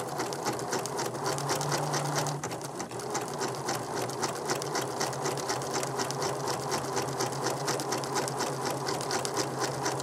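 Computerised sewing machine running steadily, stitching a programmed decorative stitch on its own with rapid, even needle strokes over a constant motor hum.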